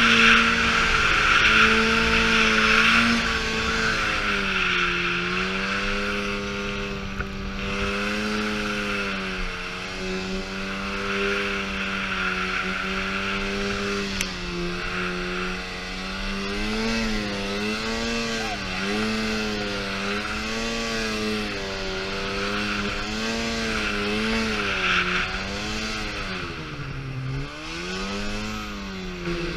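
Snowmobile engine running under throttle while riding in deep snow. Its pitch holds fairly steady at first, then rises and falls again and again in the second half as the throttle is worked, dropping deeply near the end. A steady hiss runs underneath.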